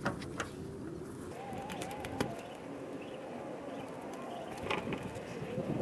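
A bird calling in the background with a low, wavering call, over a few sharp clicks and knocks.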